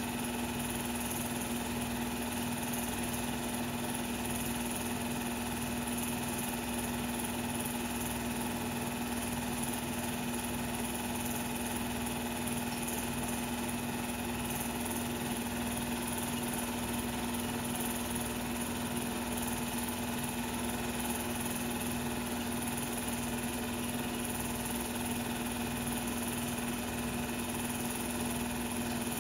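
Steady mechanical hum and whir from the 16mm film transfer machine running, unchanging in pitch and level, with no game sound.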